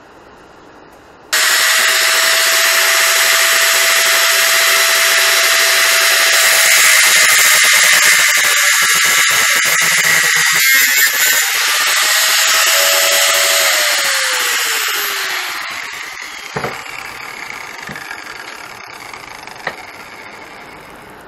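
Electric angle grinder starts abruptly about a second in and cuts through steel tubing, a harsh grinding rasp over a steady motor whine. It is switched off about two-thirds of the way through, its whine falling in pitch as the wheel spins down, followed by two light knocks.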